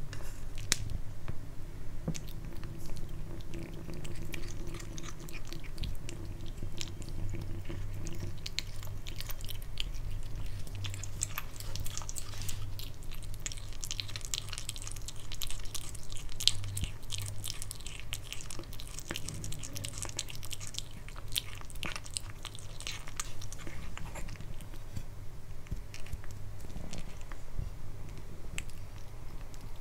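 A kitten chewing and biting raw pork: a long run of small, quick wet clicks and smacks, busiest in the middle, over a steady low hum.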